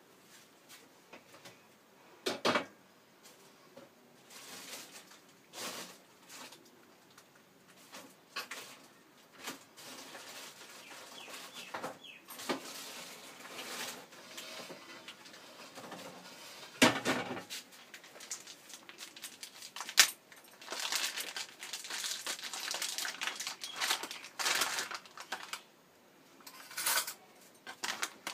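A metal spoon stirring thick ground urad dal batter in a plastic bowl: irregular clinks and scrapes of the spoon against the bowl, with a few sharper knocks, busiest in the second half.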